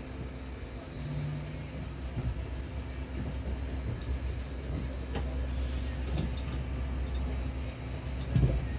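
Passenger train coaches rolling out of a station and gathering speed, heard from inside a coach doorway: a steady low rumble of wheels on rail that grows slightly louder, with scattered light clicks and a louder knock near the end.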